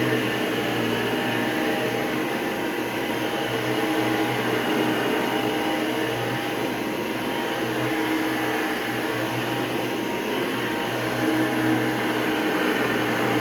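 Hoover Breathe Easy SoftGuard upright vacuum cleaner running steadily: a low motor hum under an even whooshing rush of air.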